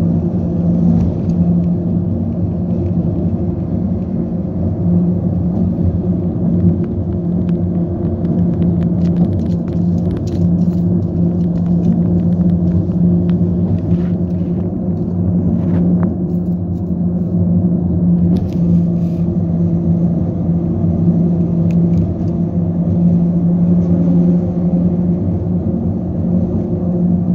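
Car tyres humming on the open steel grid deck of the Brookport Bridge, heard from inside the car: a loud, steady low drone with a second, higher hum above it and a few faint ticks.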